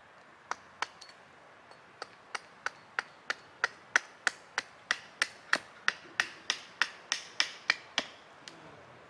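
Hatchet chopping a sycamore spoon blank held upright on a wooden chopping block: two strikes, then a steady run of short, sharp chops about three a second from about two seconds in, stopping about eight seconds in.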